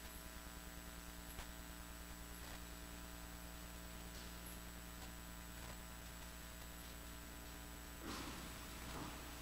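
Steady electrical mains hum with faint scattered ticks; about eight seconds in, brief handling sounds as a priest brings a vessel back to the altar.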